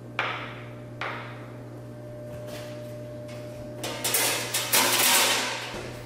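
Main electrical service panel's cover being taken off: two sharp knocks near the start, then a louder scraping clatter from about four seconds in as the cover comes free.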